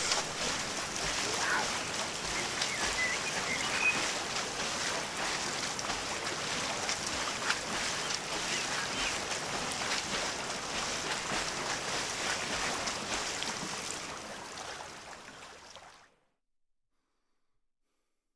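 Forest ambience sound effect: a steady, hiss-like outdoor background with a few faint bird chirps, fading out about fifteen seconds in.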